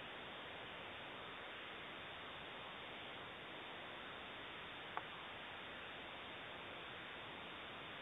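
Steady recording hiss with no clear sound in it, and one short sharp click about five seconds in.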